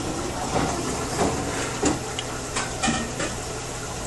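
Samsung washing machine with water hissing and sloshing in the drum as the wash begins, with a few short knocks about two to three seconds in.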